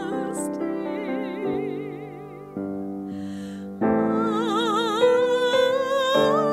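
Woman singing a slow solo song with a wide vibrato over sustained keyboard chords. She takes a breath about halfway through and comes back in louder on a long held note.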